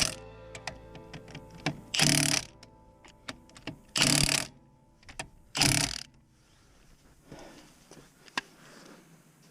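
Background music with held tones and four loud hits about two seconds apart, the music ending about six seconds in, followed by faint scattered clicks.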